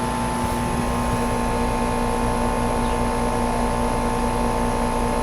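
Trane XR16 heat pump's outdoor unit running: its compressor and two-blade condenser fan give a steady rush of air with a low hum and a higher whine held on one pitch throughout.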